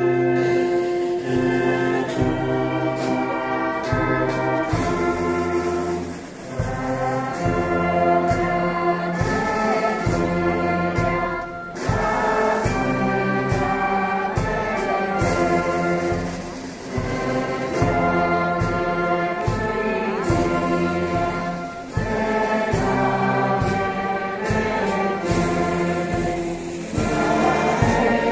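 Wind band with clarinets playing a slow hymn in sustained chords, phrase by phrase, with a brief breath between phrases about every five seconds.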